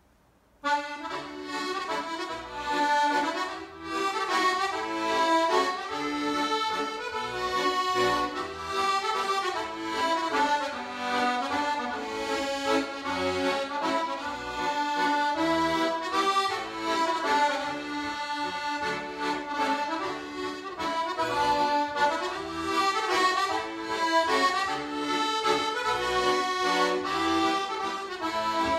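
Solo piano accordion playing a tune, a melody of quick notes over regularly spaced bass notes, starting suddenly just under a second in.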